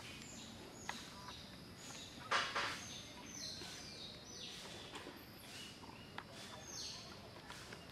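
Birds calling: a series of high, falling whistled notes, several in the second half. A short noisy burst about two seconds in is the loudest sound.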